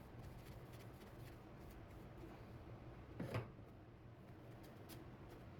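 Near silence: faint room tone with a few faint ticks, and one short soft knock or rub about three seconds in.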